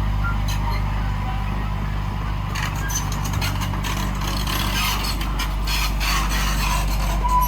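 Heavy diesel earthmoving machinery running steadily, with a stretch of clattering and rattling from about two and a half seconds in until near the end.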